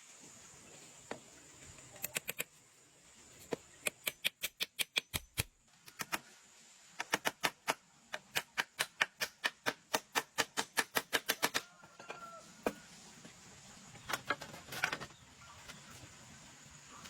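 Runs of sharp, evenly spaced taps, about four or five a second, in several bursts with pauses between, the longest lasting about four and a half seconds; a faint steady high whine underneath.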